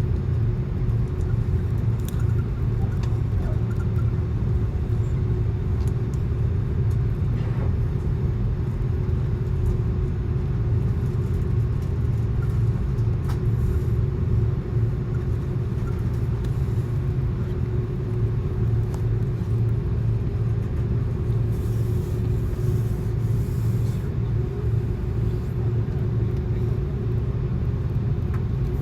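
Steady airliner cabin noise inside an Airbus A330-200: a constant low rumble with a steady hum above it, a few faint clicks, and a brief hiss near the end.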